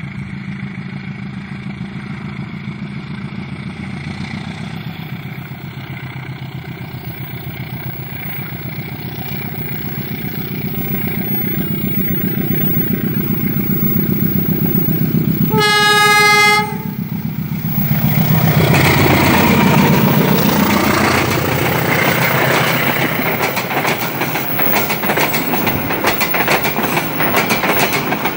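Passenger train hauled by a diesel locomotive approaching with its engine running and growing louder, sounding one horn blast of about a second a little past halfway, then passing close with the cars rumbling and the wheels clacking over the rail joints.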